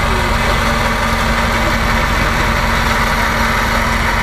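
Electric bumper-mounted winch pulling in its steel cable through a roller fairlead: a steady motor hum with one constant tone, with a vehicle engine running underneath.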